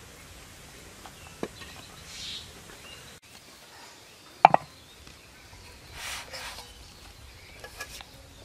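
A metal spoon clinking against steel cookware while food is served: a sharp double clink with a short ringing note about halfway through, among softer scraping sounds.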